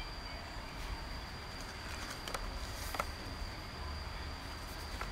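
Folded sheet of paper handled quietly: a few soft paper clicks and rustles, over a steady faint high-pitched background whine.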